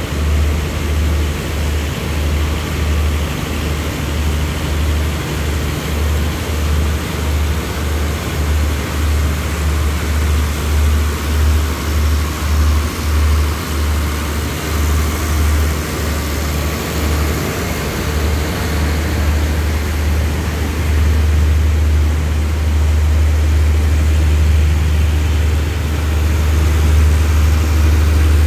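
Diesel-hauled express passenger train moving slowly out of the station: a low rumble of the coaches rolling past, pulsing unevenly at first and then steadier and a little louder in the last third.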